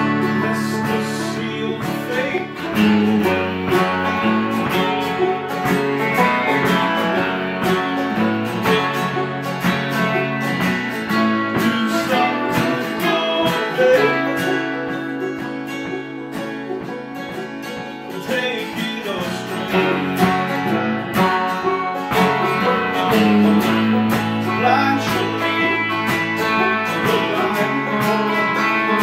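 Acoustic guitar, banjo and electric guitar playing a country-folk tune together, strummed chords under picked banjo notes at a steady tempo, easing to a softer passage about halfway through.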